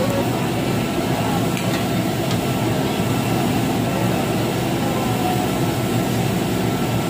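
Steady loud rushing drone of the grill's overhead stainless-steel exhaust hood drawing air, with faint voices in the background.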